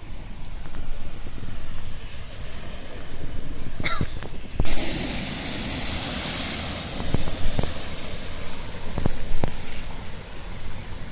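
A small car drives through knee-deep floodwater, its wheels throwing up a wave of spray. A loud rushing splash starts suddenly about halfway through and carries on, with a few sharp knocks, over a low wind rumble on the microphone.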